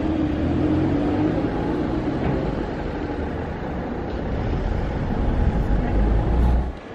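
Steady outdoor rumble and hiss with no clear single source, heaviest in the low end and swelling near the end.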